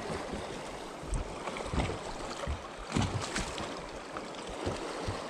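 Wind buffeting the camera microphone and water lapping against a fiberglass bass boat's hull, with a few short knocks on the boat about two and three seconds in.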